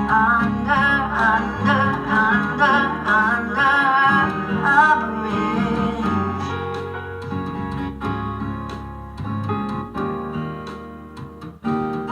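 Acoustic guitar song with a wavering voice over it for the first few seconds, the guitar playing on after. Near the end the music drops away briefly and comes back.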